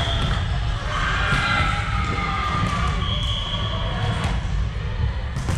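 Volleyball sports-hall sound between rallies: players' voices calling out and a ball bouncing on the wooden court floor, with a short high-pitched tone about three seconds in, all over a steady low rumble.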